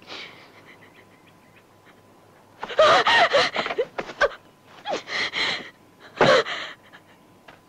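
Hard open-hand slaps to a woman's face, added as replacement sound effects, with her sharp gasps and cries between them. They come in loud clusters about three seconds in, around five seconds in and again about six seconds in.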